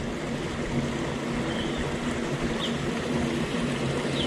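Steady low drone of a motor or engine running, with a few short, faint high chirps over it.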